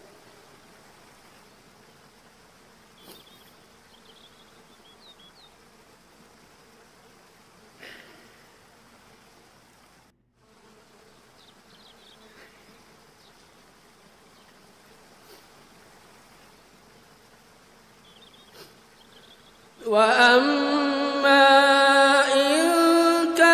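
A long hush with faint hiss, a few soft clicks and faint high chirps; about 20 s in, a man's voice starts reciting the Quran in slow melodic tajwid chant, drawing out long held notes.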